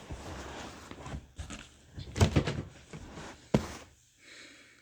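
A cardboard box being handled and opened: rustling with a few knocks, the sharpest thump about three and a half seconds in.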